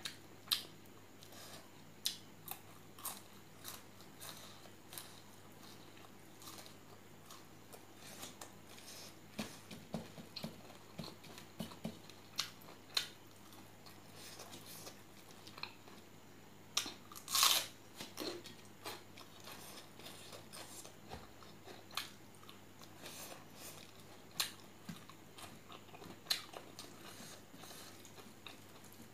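Close-up eating sounds of a person chewing pork curry and rice: crunching and chewing with sharp clicks and smacks scattered throughout, and one louder, longer noise a little past halfway.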